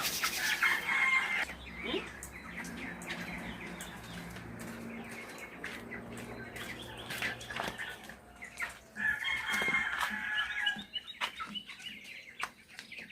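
A flock of chickens clucking and calling, loudest at the start and again about nine seconds in, with scattered sharp clicks. A low steady hum sits underneath for several seconds in the middle.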